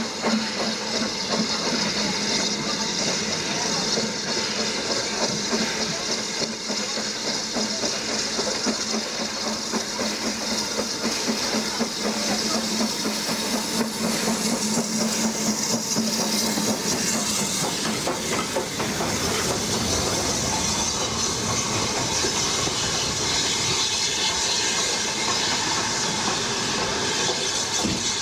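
Steady steam hiss and train running noise as BR Standard Class 9F steam locomotive No. 92212 runs past close by on the adjacent line, about halfway through.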